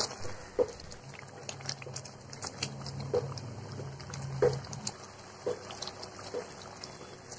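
A wooden spatula stirs thick chicken curry in a steel pot, with wet squelching and irregular soft knocks of the spatula against the pot.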